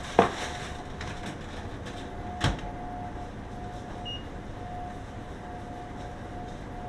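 A sharp metallic clank that rings briefly, then a duller knock about two seconds later, over a steady machine hum.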